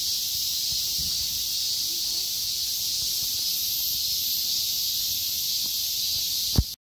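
A steady, high buzzing chorus of summer cicadas. A low thump comes near the end, and then the sound cuts off suddenly.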